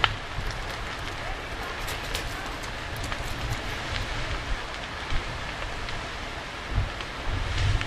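A burning garage crackling, heard from a distance: a steady hiss with scattered sharp pops. Low rumbling comes in bursts near the end.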